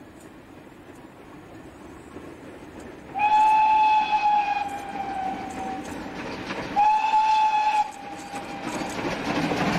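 Pannier tank steam locomotive sounding its whistle twice, a longer blast about three seconds in and a shorter one about seven seconds in, each holding one steady pitch. Beneath them the train's running noise slowly grows louder as it approaches.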